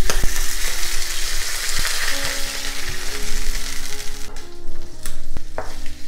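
Sliced onions frying in melted butter in a frying pan: the sizzle comes in suddenly and loud, then eases. Near the end a wooden spatula stirring them clacks a few times against the pan.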